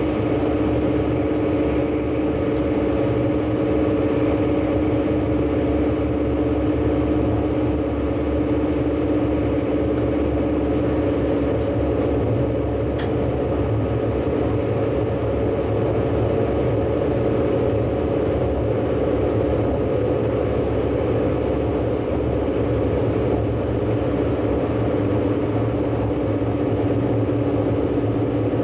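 German ICE high-speed train running steadily, heard from the driver's cab: a low rumble with a steady multi-tone hum that weakens in the middle and returns near the end. A single brief click about halfway through.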